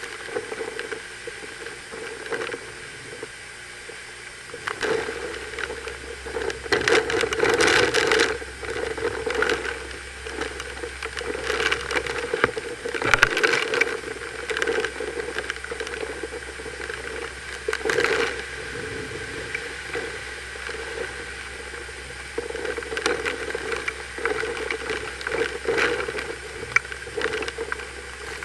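Hurricane-force wind and driving rain, rushing steadily with strong gusts surging louder about seven, thirteen and eighteen seconds in.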